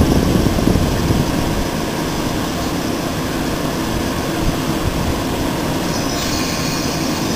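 Electric multiple-unit train standing at the platform with its equipment running in a steady hum. About six seconds in, a higher whine joins.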